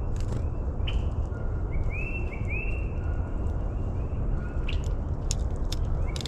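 A songbird singing a series of short, clear whistled notes, about two a second, that starts a second or two in and fades after a few seconds, over a steady low outdoor rumble and a few light clicks.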